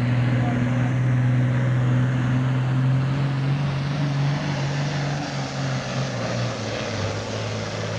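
Heavy super stock pulling tractor's diesel engine running hard under load, black smoke pouring out, with a steady deep engine note. About six seconds in, the engine note drops a little lower and slightly quieter.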